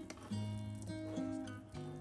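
Background music: an acoustic guitar playing plucked notes that ring on.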